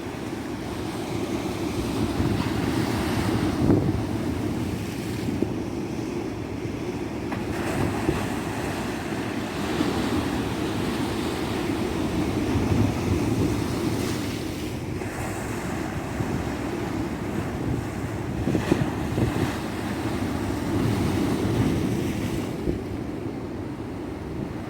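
Ocean surf washing onto a beach, a steady rushing that swells and eases every few seconds as waves break.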